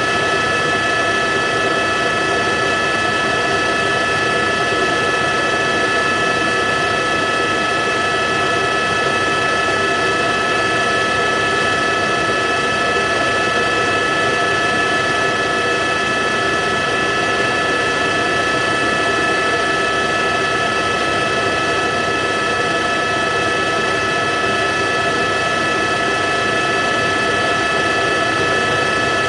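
Helicopter noise heard from on board: a steady, unchanging drone of engine and rotor with several constant high whining tones.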